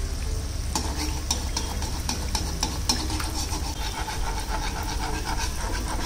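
Puff-pastry khari squares deep-frying in oil in a steel kadai on a low flame: steady sizzling with dense crackling that picks up about a second in, as a perforated slotted spoon stirs through the oil.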